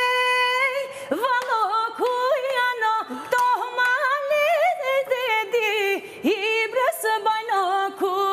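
A woman singing an Albanian folk song from Dibër without instruments. She holds a long note, then breaks into wavering, ornamented runs, with a few knocks of a wooden spoon on a pot lid.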